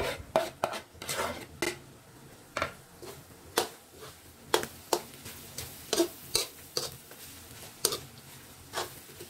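Wooden spatula stirring ground pork lung and diced vegetables in a metal wok, with irregular knocks and scrapes against the pan about once every half second to a second.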